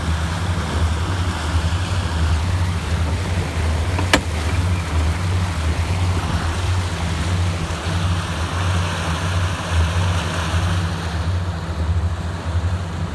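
Twin engines of a Sea Ray 310 Sundancer cruiser running at low speed, not yet on plane: a steady low drone under the rush of churning wake water. A single sharp click about four seconds in.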